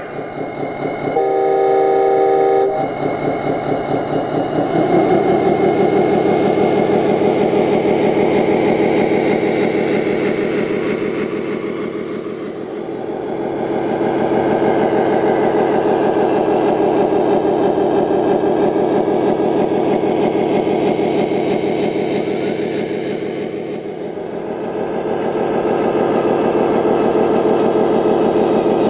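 Electronic sound module of a radio-controlled Scania 8x8 dump truck: a multi-tone air-horn blast of about a second and a half near the start, then a simulated diesel truck engine building up under throttle, easing off twice and building again.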